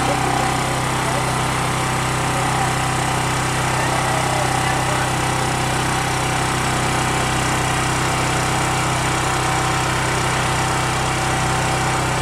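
Portable generator engine running steadily at a constant speed, with an even, unchanging drone.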